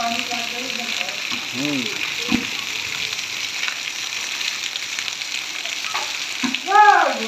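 Heavy rain falling steadily on concrete and puddled ground, an even hiss. Brief voices call out about a second and a half in, and more loudly near the end.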